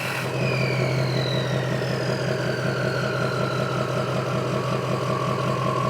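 Ford 6.0 Powerstroke V8 turbodiesel idling through a 4-inch straight-pipe exhaust, with a steady low throb under a turbo whistle whose several tones glide slowly down in pitch.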